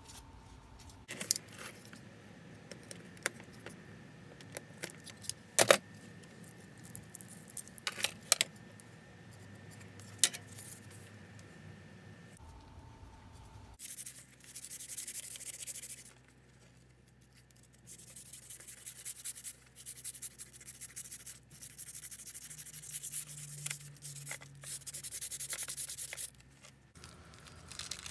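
Thin copper pipes handled on a workbench: a few sharp clicks and knocks as they are picked up and laid down, then a series of rubbing strokes, each a second or two long, as a hand works along a pipe.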